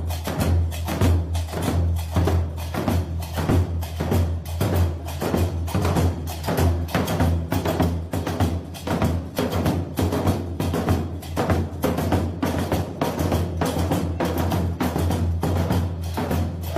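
Background music with a steady percussion beat.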